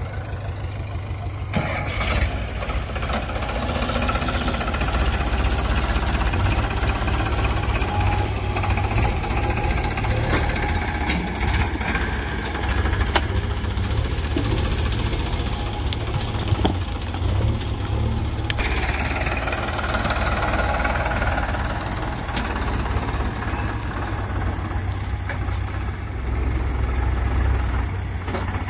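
Diesel engines of a JCB 3DX backhoe loader and a Farmtrac tractor running steadily, with scattered knocks and clatter from the digging and loading. The sound changes abruptly about two thirds of the way through.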